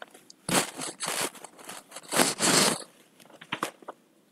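Crumpled tissue paper rubbed hard across a whiteboard to erase it: two long wiping strokes, with fainter rustles and scrapes of the paper between them.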